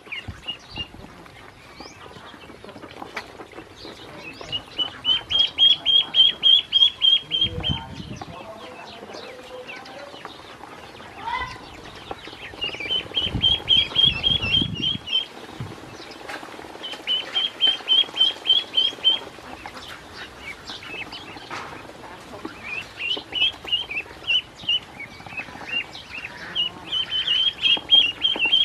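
Ducklings peeping in rapid runs of high, evenly spaced calls, about five a second, each run lasting a couple of seconds and starting up again several times.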